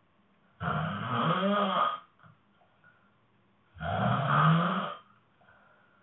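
A sleeping woman snoring: two long snores, each over a second, about three seconds apart.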